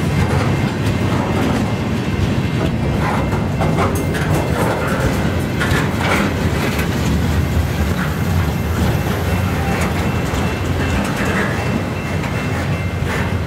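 Steel wheels of a CN freight train's loaded aluminum-ingot flatcars rolling past on the rails: a steady low rumble with scattered clicks from the wheels.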